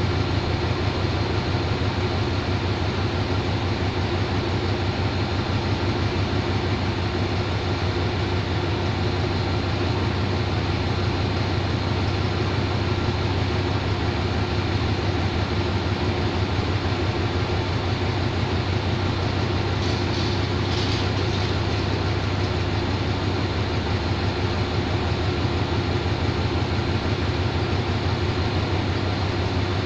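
Diesel locomotive idling at a standstill: a steady low engine drone with a fine rapid throb.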